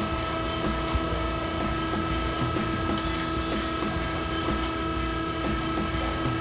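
Shop machinery running with a steady hum and a constant whine over a low rumble.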